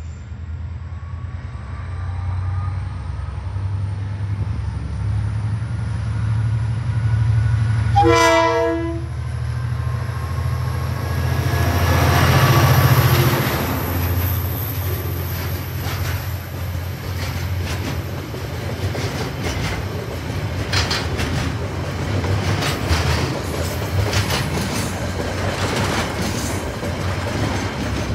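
KiwiRail DFB-class diesel-electric locomotive running under load as it approaches and passes, with a short horn blast about eight seconds in, loudest a few seconds later as the locomotive goes by. After that, container wagons roll past, their wheels clicking over the rail joints.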